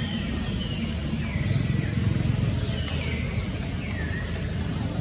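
A bird calling repeatedly, short high notes that slide downward, about one a second, over a steady low rumble of wind or background noise.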